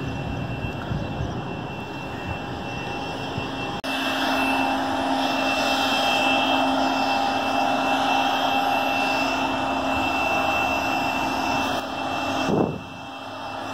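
A steady motor hum that changes abruptly about four seconds in, then drops quickly in pitch near the end as if winding down.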